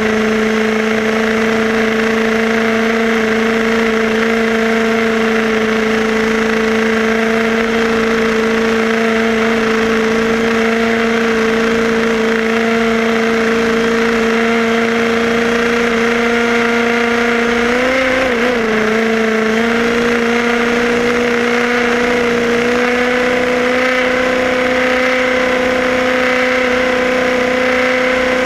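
Electric motor and gears of a Tamiya radio-controlled car whining steadily at speed, the pitch creeping slowly upward, with a brief wobble in pitch about two-thirds of the way through.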